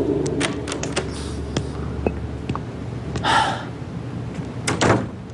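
A door opening, with scattered clicks and light knocks of the handle and latch, a short rush of noise about three seconds in and another cluster of knocks near the end.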